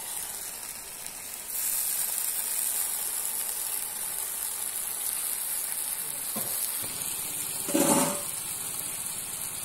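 Chicken gravy frying in a wok over a wood fire: a steady sizzling hiss that gets louder about one and a half seconds in. A brief louder sound comes near the end.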